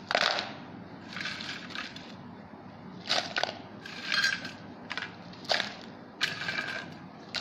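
Crisp, sun-dried buttermilk chillies rustling as handfuls are dropped into a plastic bowl, in about six short bursts.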